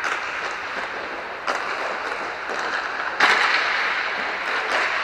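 Inline hockey sticks and puck clacking sharply several times, the loudest strike about three seconds in, echoing in a large hall over a steady hiss.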